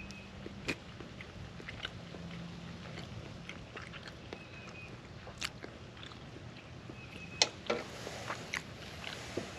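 Small crackles and clicks from handling a freshly hard-boiled egg, with two sharper cracks about seven and a half seconds in.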